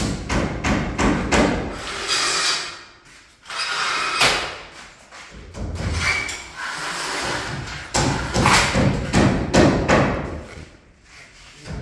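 Folding steel trellis security gate being dragged along its track across sliding glass doors, its bars clattering and rattling. Dense runs of knocks come at the start and again about eight seconds in, with noisier sliding stretches between.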